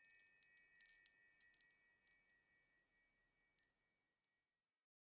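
Tinkling high chimes of an outro sting: a quick flurry of bright struck tones that ring on and die away over about three seconds, followed by two last soft tinkles.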